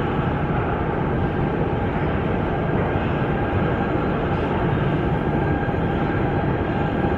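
Steady rumble and hum of a metro train on an underground station platform, holding at an even level.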